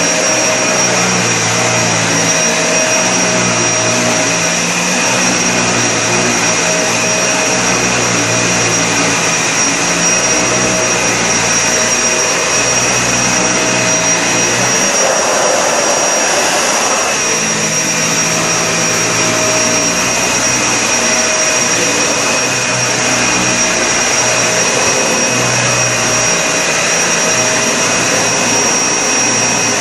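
Vacuum cleaner running steadily with a high whine over a lower hum that swells and fades unevenly, with a brief change in tone about halfway through.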